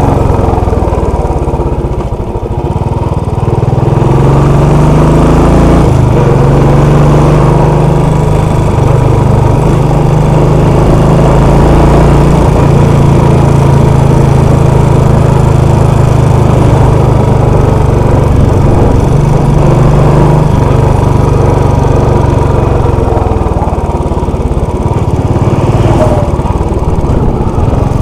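Royal Enfield Classic 500's single-cylinder engine running as the motorcycle is ridden downhill. The engine note dips about two seconds in, climbs again, and drops once more near the end.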